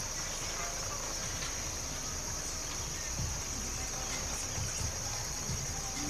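A steady, high-pitched insect chorus, with a low rumble underneath.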